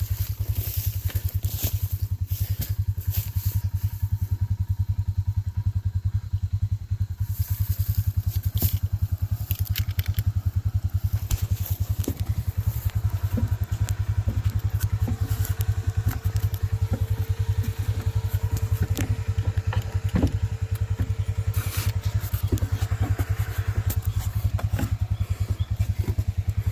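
A small engine running steadily at an idle-like pace, with scattered clicks and knocks over it.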